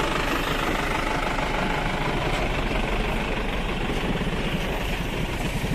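Heavy diesel engine idling steadily, a low, even rumble.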